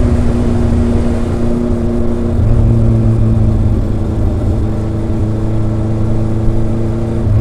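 Kawasaki ZRX inline four-cylinder motorcycle engine and exhaust running at a steady pace while riding, with a small shift in engine note a couple of seconds in and a change and rise in loudness near the end.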